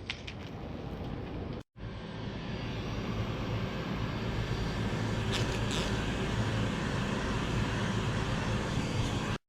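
Steady machine noise, a rushing hiss over a low hum, growing slightly louder, broken by sudden dropouts near the start.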